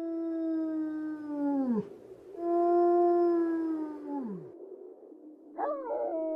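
Animal howling: three long held howls, the first two sliding down in pitch at their ends, the third starting near the end with a wavering rise before it holds steady.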